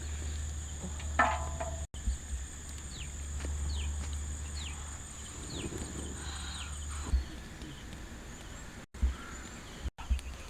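Outdoor forest ambience: a steady high-pitched insect drone with a few short falling bird chirps and scattered knocks. The insect drone stops abruptly about seven seconds in.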